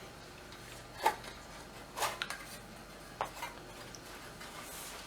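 A few light metal clicks and clinks of hand-tool work on the metal case of an Amiga 1000 power supply, spaced about a second apart.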